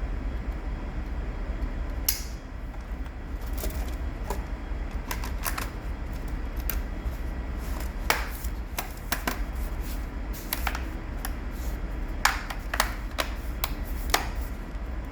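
Irregular sharp clicks and taps from a Dell Latitude 3440 laptop being handled during a RAM upgrade: its plastic case and internal parts being worked on, over a steady low hum.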